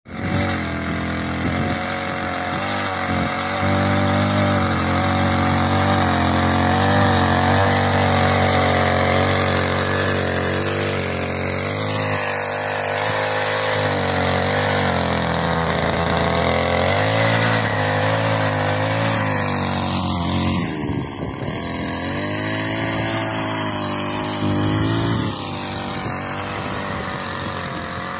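Small petrol engine of a walk-behind power weeder running under load as it tills between crop rows, its speed rising and falling as it works.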